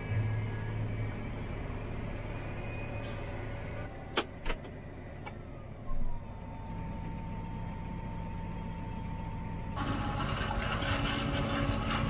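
John Deere tractor engine running steadily, heard from inside the cab while packing silage, with two sharp clicks about four seconds in, a thump near six seconds and a steady whine after it. About ten seconds in it changes abruptly to the louder, noisier running of a forage harvester chopping into a truck in the field.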